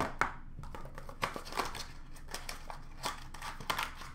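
Wrapping crinkling and tearing in irregular scratchy bursts as a sealed hockey card box is opened by hand.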